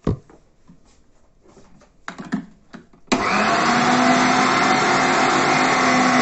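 Electric meat grinder switched on about three seconds in and running steadily with a loud motor whine and hum, grinding boiled chicken fillet through a fine-holed plate. Before it starts, a few light knocks and clatter of setting up.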